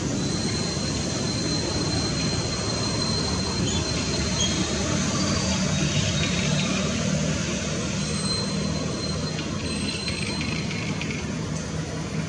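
Steady rushing outdoor background noise, with a thin, high-pitched steady whine through the first half that returns briefly later on.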